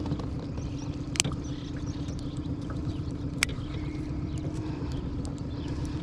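Boat motor running with a steady low hum, with two sharp clicks of handling, one about a second in and one a couple of seconds later.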